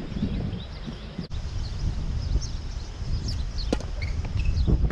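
Wind rumbling on the microphone, with birds chirping and a couple of sharp tennis-ball pops from racket hits or bounces, the clearest a little before four seconds in.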